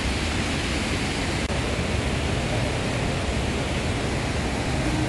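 Steady roar of rushing water from a waterfall, an even hiss that does not change.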